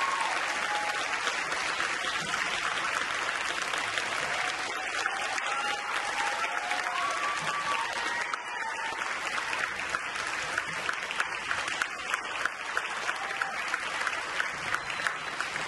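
Theatre audience applauding just after the orchestra finishes, with a few voices calling out in the middle; in the second half the applause thins so that single claps stand out.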